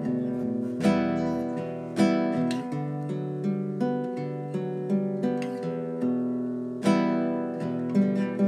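Acoustic guitar background music, strummed chords with plucked notes at a steady, unhurried pace.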